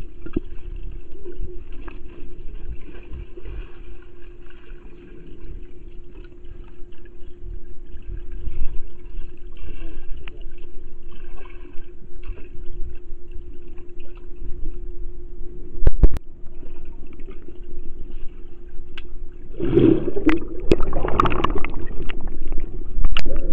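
Swimmers moving through pool water, heard underwater through a waterproof camera's housing: a muffled rumble and gurgling over a steady low hum. There is a single sharp knock about sixteen seconds in, and a louder muffled burst near the end.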